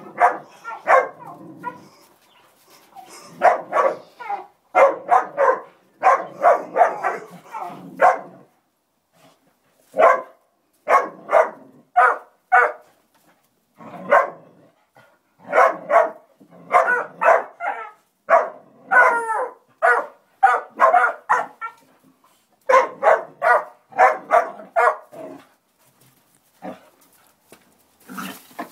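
Two young hog dogs barking at a hog in a pen, in quick runs of barks broken by short pauses: pups baying a penned hog in training.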